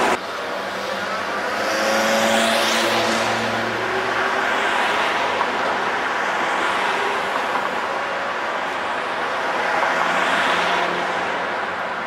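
City street traffic passing by, with one vehicle sweeping past about two to three seconds in and another about ten seconds in.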